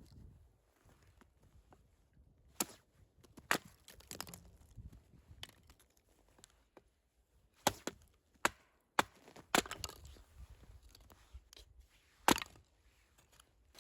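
Firewood being chopped: a string of irregular sharp wooden knocks and cracks, about ten strikes, the loudest near the end.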